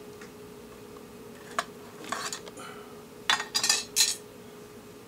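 Small hard parts clicking and clattering as they are picked up and moved on a workbench: a single click about a second and a half in, a short rattle around two seconds, then a louder run of clatters between three and four seconds. A faint steady hum runs underneath.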